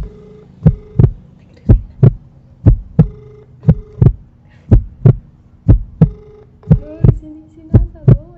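Mobile phone on speakerphone ringing out while a call waits to be answered: a loud ringback of double pulses, about one pair a second, with a faint steady tone between them.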